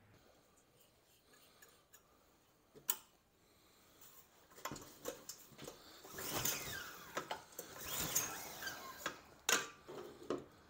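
Hands handling a small horizontal-shaft engine and its rubber fuel hose on a table: a single click, then about halfway in a busy run of clicks, light knocks, rustling and short squeaks from plastic and hose being worked.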